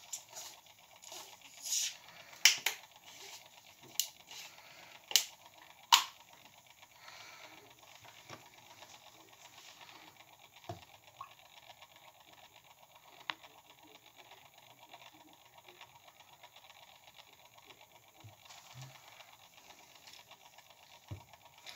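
Sharp plastic clicks and crackles from a plastic juice bottle's screw cap being twisted open and handled, about half a dozen loud clicks in the first six seconds. After that, faint sounds of juice being poured into a plastic shaker cup, with an odd click.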